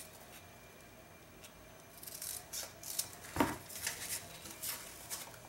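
Scissors cutting grosgrain ribbon: quiet at first, then a few short sharp snips from about two seconds in, the strongest about midway, followed by light handling of the ribbon.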